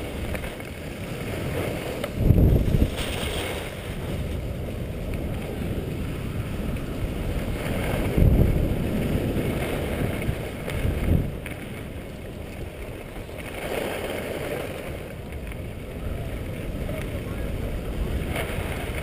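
Wind rushing over the microphone of a skier's camera on the way downhill, with the steady hissing scrape of skis on packed snow. Three louder low gusts of wind buffet the microphone about two, eight and eleven seconds in.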